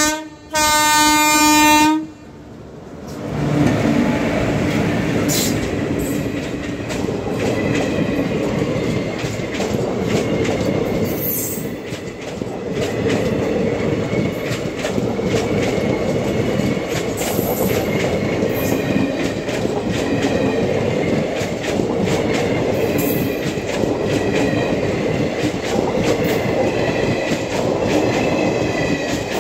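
Electric locomotive's horn sounding, breaking off briefly and resuming, then ending about two seconds in. After that the passenger coaches of an express train pass close by at speed: a loud, steady rumble with the wheels clattering over the rail joints.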